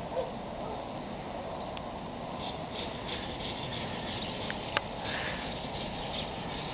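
Snow crunching and swishing in a quick, even rhythm, about three strokes a second, starting about two and a half seconds in over a steady hiss. There is one sharp click near the end.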